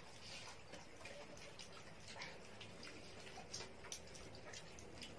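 Quiet eating sounds: faint, scattered small clicks and clinks of hands and fingers working rice on steel plates, a couple slightly louder about three and a half seconds in.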